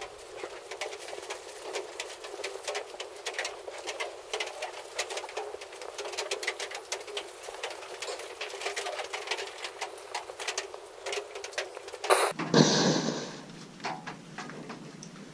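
Priming flame of an MSR DragonFly liquid-fuel stove burning in the open as the stove preheats, with a constant crackle of many small pops and ticks. About twelve seconds in, the sound switches abruptly to a brief, louder rush of noise.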